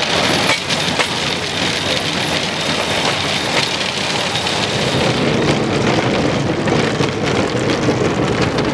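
Bamboo train (norry) running along the rails: a steady, loud, rattling rush with many quick clicks from its wheels on the track.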